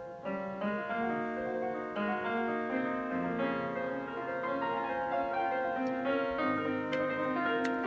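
Background piano music playing a gentle melody with chords.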